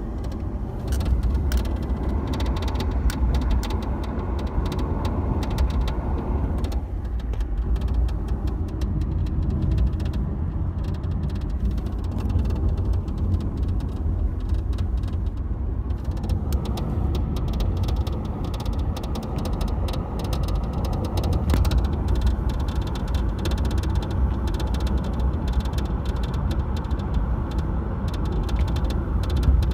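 Inside a moving 2014 Dodge Charger SE with the 8-speed automatic: a steady low road and drivetrain rumble with a rapid clicking rattle from around the shifter. The owner takes it for something loose hitting metal, though he has found nothing loose.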